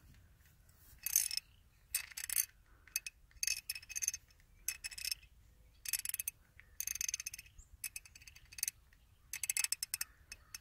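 SK 1/2-inch drive hand ratchet (42-470) clicking in about nine short bursts of rapid ticks as its head is turned by hand, the pawl running over the gear teeth. The teeth feel sound, with none broken.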